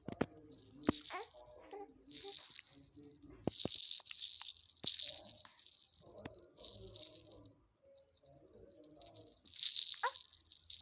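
A baby's rattle toy shaken in short bursts, about six times, with pauses between.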